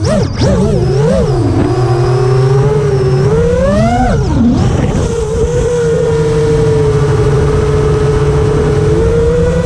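Brushless motors and propellers of a 5-inch FPV quadcopter (iFlight Xing 2806.5 1300kv) whining in flight. The pitch wavers with throttle, climbs about four seconds in, drops sharply, then holds steady at cruise.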